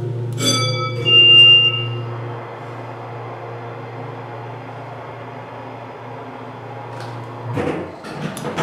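Elevator alarm button pressed: the alarm sounds briefly, a sudden ringing tone with a piercing high beep lasting about a second and a half. Under it a steady low hum runs and stops about seven and a half seconds in, followed by a short clatter.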